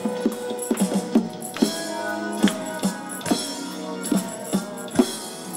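Music with a steady percussive beat and sustained instrumental or vocal notes.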